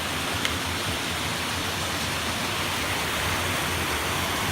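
A mountain brook rushing steadily over rocks, an even, unbroken wash of water noise.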